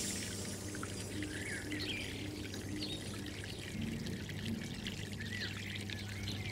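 Continuous soft trickling water with a few low, steady held tones underneath and faint short chirps scattered above.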